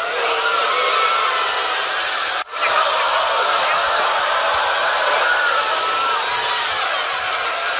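Loud, harsh distorted noise from many audio tracks mashed together, with a brief dropout about two and a half seconds in.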